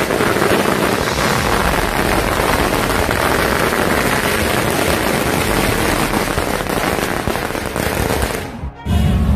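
Firecrackers going off in a dense, unbroken crackle, cutting off suddenly near the end.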